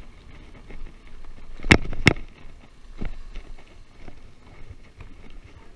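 Child's Specialized Riprock 20-inch mountain bike rolling over pavement with a low rolling noise, and two sharp knocks about a third of a second apart nearly two seconds in, then a fainter knock a second later.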